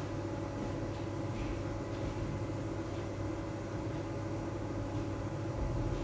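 Steady low machine hum, like a fan or appliance running, with faint soft rustles of flatbread being handled.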